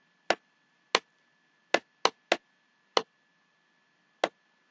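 Single keystrokes on a computer keyboard, about seven separate clicks at uneven spacing as a number is typed.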